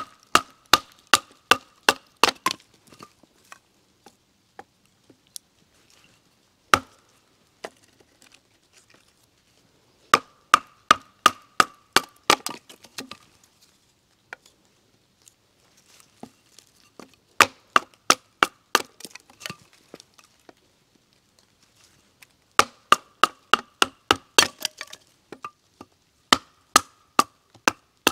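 A knife being batoned through a beech branch: a wooden baton strikes the blade's spine in quick runs of sharp knocks, about three a second, each with a short ringing note, and pauses of a few seconds between runs. The wet wood is being split to reach its dry core for fire-starting.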